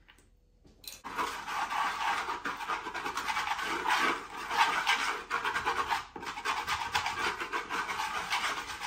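Wooden spoon scraping and rubbing in quick strokes against the bottom of a large wooden salad bowl, working garlic and salt into olive oil; a continuous rough rasping that starts about a second in.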